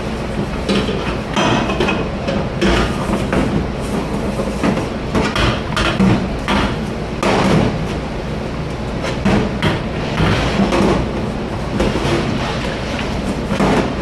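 Dishes, trays and pans clattering and knocking together at irregular intervals over a steady kitchen background noise.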